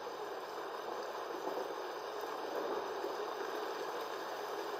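Steady rushing noise of a storm, even throughout with no sharp cracks or thunderclaps.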